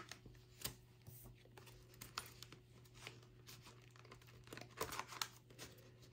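Faint rustling and light clicks of paper being handled, with a short cluster of rustles about five seconds in.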